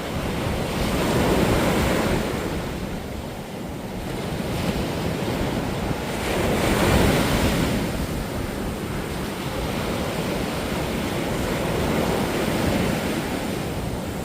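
High sea surf breaking on a sandy beach, swelling and falling away three times, about every five seconds.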